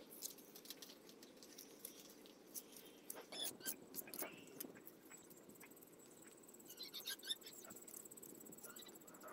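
Faint clicks, scrapes and squelches of bare hands scooping wet cement mortar from a pan and smoothing it onto brick walls. A thin, steady high whine runs through the second half.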